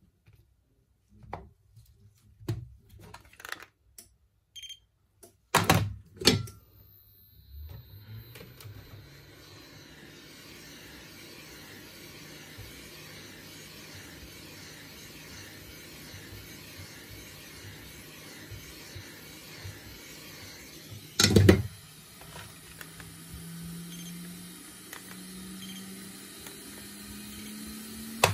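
Tool clicks and knocks on a workbench, then a small electric motor or blower starts and runs steadily, its hum slowly rising in pitch, with one loud knock partway through.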